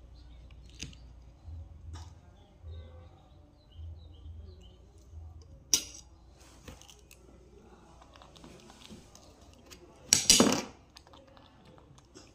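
Soft clicks and knocks of a metal fork on a ceramic plate of mango, with a sharp click about six seconds in. About ten seconds in comes the loudest sound, a brief clatter like a fork put down on the tabletop.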